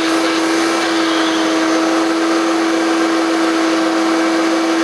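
Hoover Turbopower U1050 upright vacuum cleaner's 500-watt motor running at full speed, a loud, steady whine, drawing air through the hose and all-purpose nozzle.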